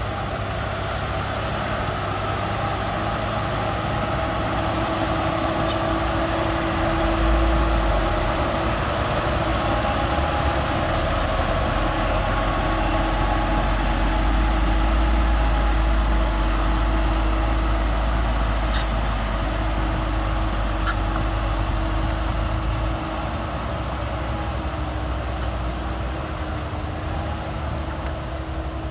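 Diesel engine of heavy earthmoving machinery running steadily, louder and deeper from about seven seconds in until about twenty-three seconds in, with a faint steady whine over it.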